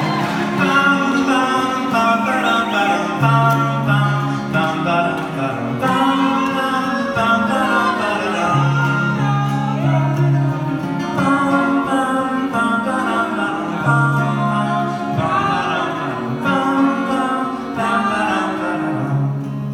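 Live acoustic folk music: male voices singing over a strummed acoustic guitar and ukulele.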